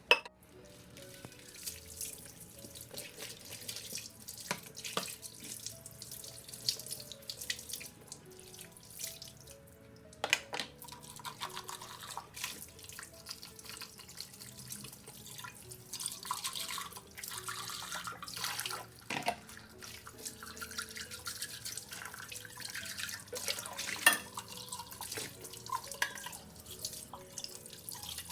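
Water from a tap running into a sink, with uneven splashing and a few sharp knocks, the loudest at the very start and near the end.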